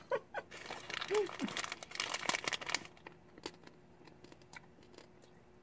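Crinkling of a plastic share-size candy bag as a hand rummages in it for another candy egg, densest in the first three seconds and thinning to a few light clicks after.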